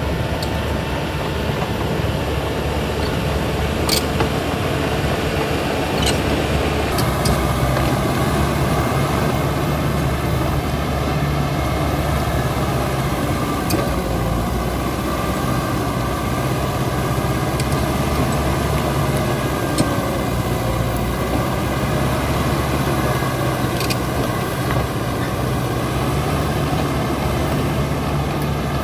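Caterpillar D6R XL bulldozer's diesel engine running steadily under load, its note shifting about seven seconds in, with a few sharp metallic clanks.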